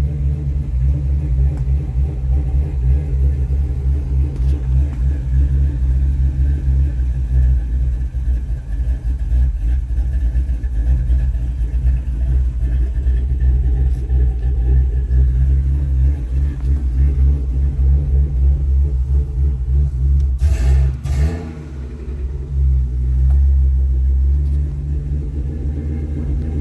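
Pickup truck engine idling roughly, a loud, uneven low rumble, with a brief dip and a couple of short sharp noises about three-quarters of the way through. A buddy calls it running rich; the owner thinks it is burning up the coils and may need a fuel pump.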